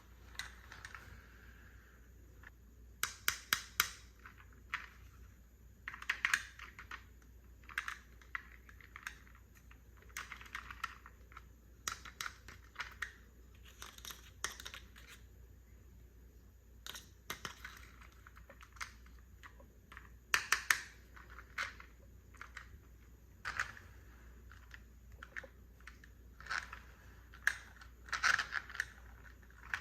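Miniature plastic toy furniture being unboxed by hand: plastic packaging crinkling and tearing in irregular bursts, with light clicks and taps of small plastic pieces, a few in quick clusters.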